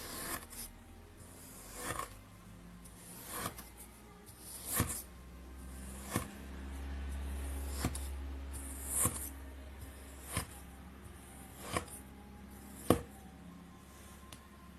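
Knife cutting through kinetic sand: about ten sharp taps at roughly even spacing as the blade meets the surface beneath, with soft scraping between them. The loudest tap comes near the end.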